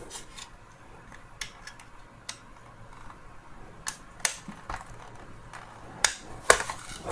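Scattered light clicks and taps, about seven or eight of them, from a precision screwdriver bit on a bendable extension working at a Torx screw inside a Dyson V10's plastic motor housing.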